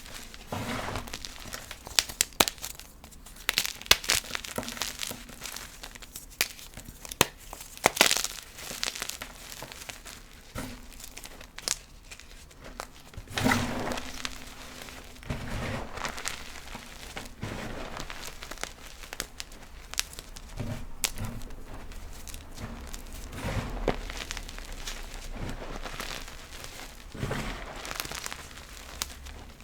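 Blocks of gym chalk being crushed: a run of sharp crunches and cracks with softer powdery crumbling between them.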